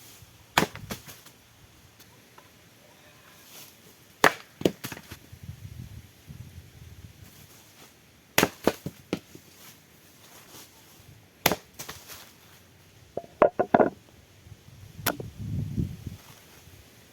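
Sharp knocks of tool strikes on wood, coming in small groups of one to three with pauses of a few seconds between them, and a quick run of several knocks about three-quarters of the way through.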